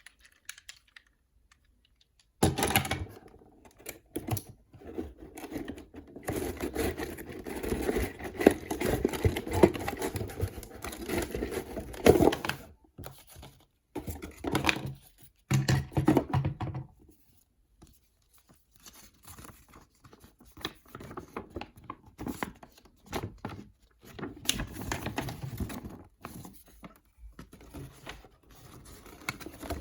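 Cardboard and plastic toy packaging being handled and opened: irregular rustling, scraping and tearing with light clicks and knocks, busiest in the first half and sparser later.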